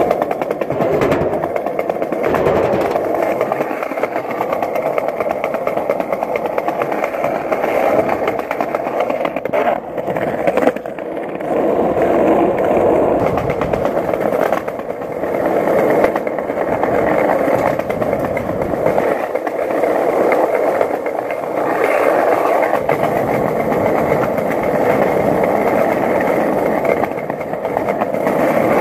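Skateboard wheels rolling over pavement, a continuous rough rumble that dips briefly about ten and fifteen seconds in.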